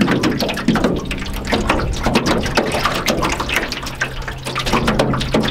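Small waves lapping and slapping against the hull of an aluminium canoe, a quick irregular run of splashes and gurgles.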